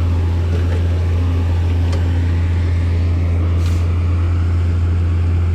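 An engine running steadily at an even speed, making a loud, unchanging low drone.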